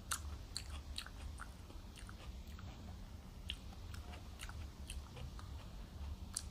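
A person chewing food close to the microphone: many short, irregular wet mouth clicks, over a faint steady low hum.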